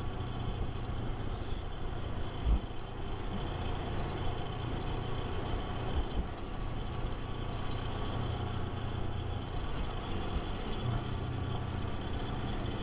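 Kawasaki Versys 250 motorcycle engine running steadily while riding, with a short low thump about two and a half seconds in and another around six seconds.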